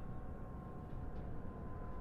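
Car driving: a steady low road and engine rumble, with a faint high whine that drifts slowly lower.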